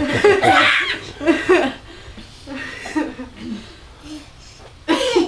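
Laughter, loudest in the first second and a half, then quieter, with a short loud burst near the end.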